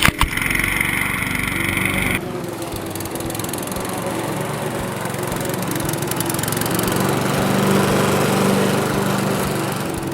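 Briggs & Stratton 3.5 hp Classic push mower's single-cylinder engine running steadily. Its tone changes abruptly about two seconds in.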